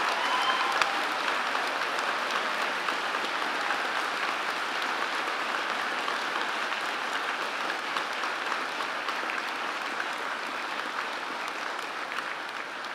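Large seated audience applauding: a steady crowd of clapping hands that slowly tapers off toward the end.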